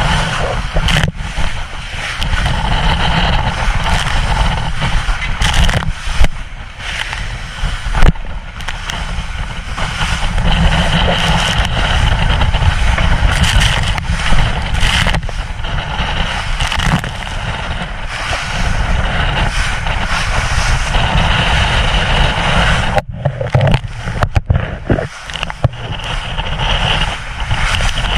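Wind buffeting the microphone and water rushing and spraying along the hull of a small powerboat running fast through rough, confused seas. Two louder thumps come about six and eight seconds in.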